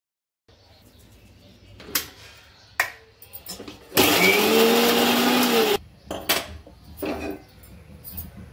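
Electric kitchen blender run in one short burst of under two seconds, its motor pitch rising as it spins up and dropping as it stops. Several knocks and clicks come before and after the burst.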